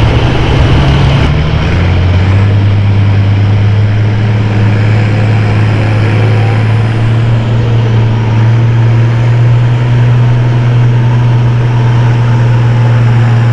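Farm tractor engine running hard under full load while pulling the weight sled down the track. Its note shifts a little over a second in, then holds steady.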